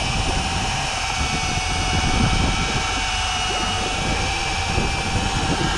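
Steady motor drone holding several even tones, with wind buffeting the microphone.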